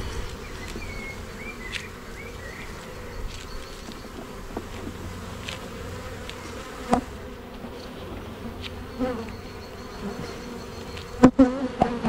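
Honeybees buzzing steadily over an open wooden hive, with a few light clicks and one sharp knock near the end as the wooden frames are levered and pushed together with a hive tool.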